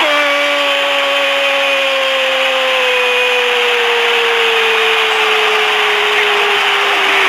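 Brazilian radio football commentator's drawn-out goal cry: one unbroken shouted vowel held for about seven seconds, slowly sinking in pitch, over a steady haze of crowd noise.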